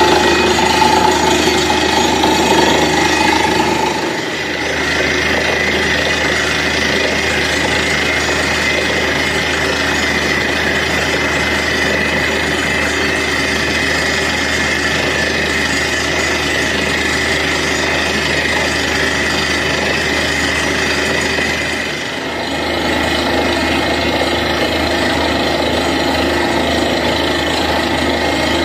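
Truck-mounted borewell drilling rig running while it drills, its engine and drilling gear making a continuous, loud, dense mechanical noise with a hammering character. The noise dips briefly about four seconds in and again near 22 seconds, then resumes unchanged.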